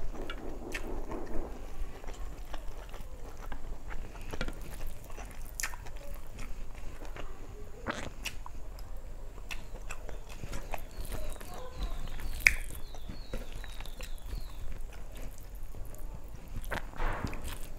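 Close-miked eating by hand: chewing and wet mouth clicks, with fingers mixing rice and curry on a steel plate, a string of small sharp clicks throughout.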